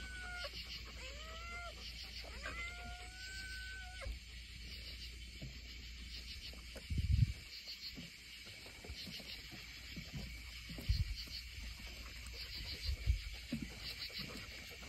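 Cats meowing, three calls in the first four seconds, the last one long. Underneath, night insects chirp in steady high pulses, and a few dull low thumps come later, the loudest about seven seconds in.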